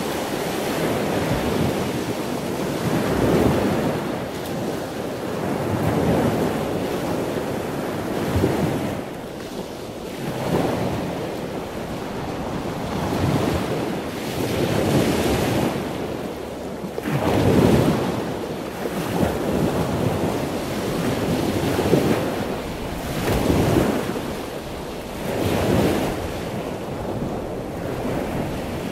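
Wind buffeting the action-camera microphone over water rushing along a moving boat's hull, rising and falling in uneven gusts every couple of seconds.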